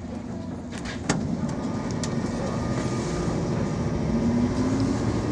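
115-series electric train's MT54 traction motors pulling away from a stop, heard from the cab. The motor tone rises in pitch and the running noise grows as the train gathers speed, with a sharp clack about a second in.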